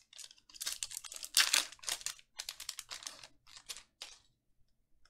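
Foil wrapper of a Panini Mosaic football card pack crinkling and crackling as it is torn open and handled. It makes a dense run of sharp crackles that stops about four seconds in.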